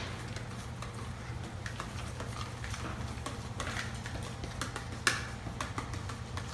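Cake batter being stirred by hand in a plastic mixing bowl: scattered light clicks and taps of the spoon against the bowl, with one sharper knock about five seconds in, over a steady low hum.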